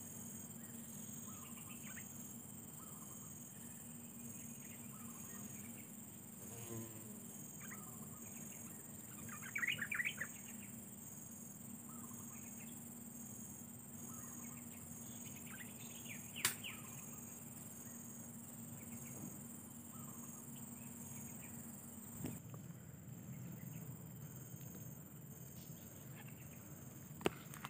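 Steady high, pulsing drone of insects with short bird chirps over it, the loudest a brief burst of chirping about ten seconds in and another near the middle, with a sharp click just after it.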